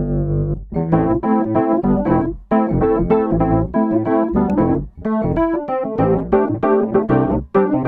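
Spectrasonics Keyscape sampled keyboard patch with a piano or electric-piano tone, playing quick repeated chords at about five a second. The chords come in short phrases, with a brief gap about every two and a half seconds.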